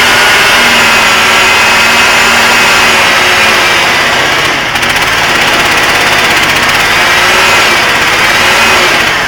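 Small engine of a homemade mini excavator running steadily and loud, its pitch wavering slightly, with a brief dip in level about halfway through and again near the end.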